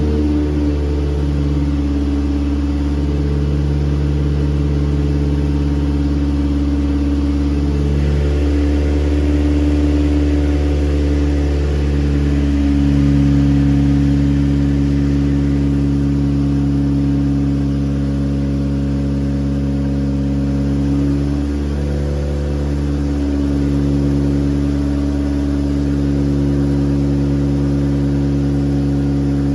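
Background music: sustained low chords that shift to new notes every few seconds.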